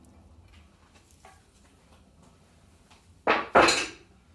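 Two loud metallic clanks, a fraction of a second apart, about three and a half seconds in, after a faint click: the heavy metal cover of a Pratt and Whitney lathe's gear head being lifted off and set down.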